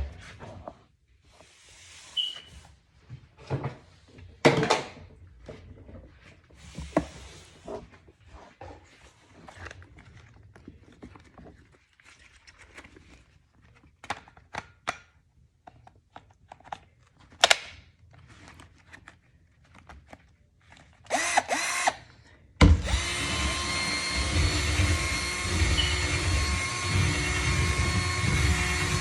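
Scattered knocks, clicks and a few short hissing bursts from handling cleaning things, then a small electric motor switches on about three-quarters of the way through and runs steadily with a high whine.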